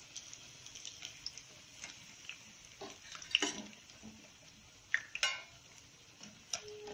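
Deep-fried whole potatoes sizzling in hot oil in a kadhai while a metal slotted skimmer scoops them out. The skimmer clinks against the pan several times, loudest about three and a half and five seconds in.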